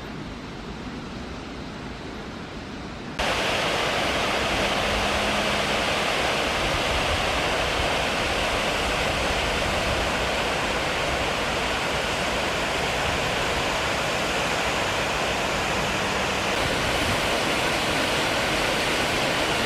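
Rushing water of a waterfall close by, a loud, steady noise that comes in abruptly about three seconds in, after a quieter, more distant rush of water.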